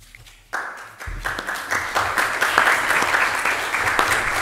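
Applause from a room of people, starting about half a second in and quickly building to steady clapping.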